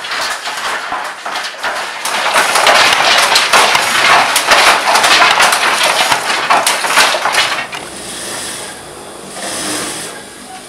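Wooden handloom being worked: a fast, busy run of wooden clacks and knocks from the beater and frame, loudest through the middle few seconds, then thinning out and quieter near the end.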